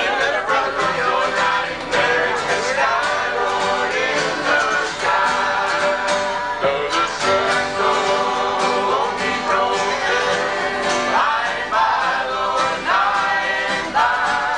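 Two acoustic guitars played together, strummed and picked, with voices singing along.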